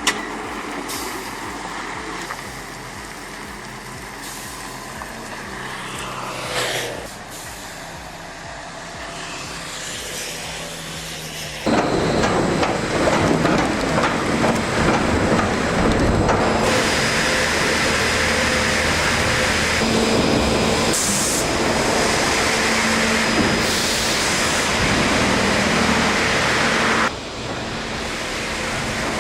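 Scania G480 6x6 truck's diesel engine running, with air-brake hiss. About twelve seconds in, a much louder, noisy rush of sound starts suddenly and holds until near the end.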